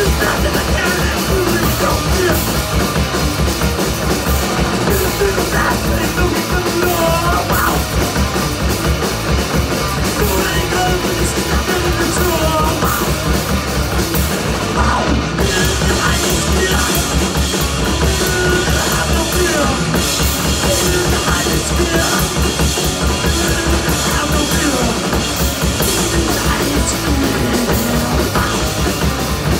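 Live rock band playing loud: electric guitars, bass and a drum kit going without a break, heard from within the crowd. The sound grows brighter about halfway through.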